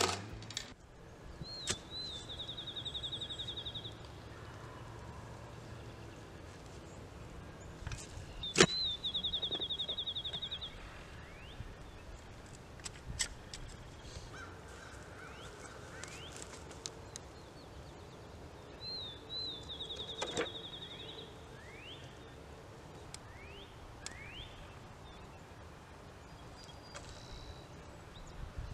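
A songbird outdoors sings the same short song four times, a couple of slurred notes running into a fast, even trill, while other birds give short rising chirps. A few sharp knocks from a post-hole digger biting into the soil come through; the loudest is about eight seconds in and another is around twenty seconds.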